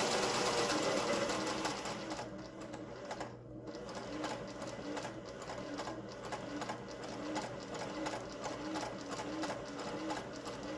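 Singer 401A slant-needle sewing machine sewing a close zigzag stitch. It runs fast and steady for about two seconds, then slows to an even stitch-by-stitch rhythm.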